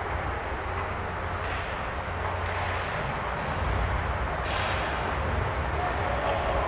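Ice rink ambience: a steady low hum under the arena's noise, with faint clacks of sticks and puck from play at the far end, the sharpest about four and a half seconds in.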